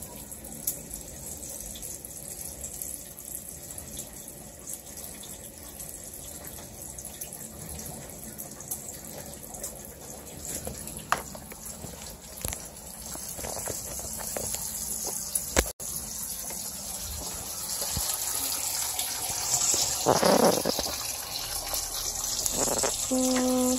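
Steady hiss of food frying in a pan on the stove, growing louder in the last few seconds, with scattered knocks and clatters, the loudest about twenty seconds in.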